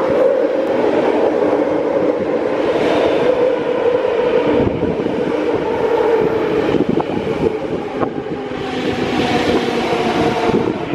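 MTR C-Train electric multiple unit, built by CNR Changchun, running into the station along the platform: a steady rumble of wheels on rails with a motor whine that slowly drops in pitch as it comes in.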